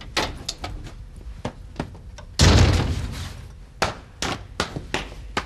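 A wooden door slammed shut about two and a half seconds in: one loud bang that rings on for about a second. Scattered lighter clicks and knocks come before and after it.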